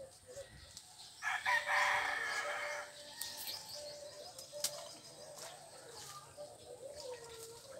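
A loud bird call starting about a second in and lasting just under two seconds.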